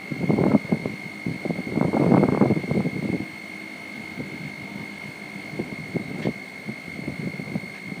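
A crane's wind-speed alarm buzzer sounds one steady high-pitched tone, set off because the wind is over 21 m/s. Gusts of storm wind rumble against the microphone over it, strongest in the first three seconds.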